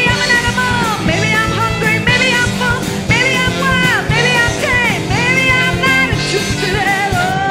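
Live rock band with bass, drums, guitar and saxophones playing an instrumental passage, a lead line bending its notes up and down over a steady bass and drums groove.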